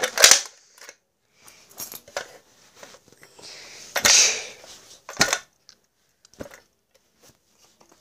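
Scattered clicks, knocks and light rattles of plastic fire-alarm devices, a pull station and a horn strobe, being picked up and moved by hand. The sharpest clicks come right at the start and about four and five seconds in.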